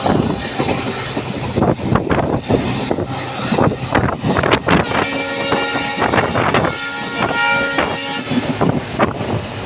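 EMD WDP-4B diesel locomotive's multi-tone air horn sounding about five seconds in, two blasts back to back lasting about three seconds in all, several notes at once as a chord. Underneath is the loud steady rumble of the passing train, with wind buffeting the microphone.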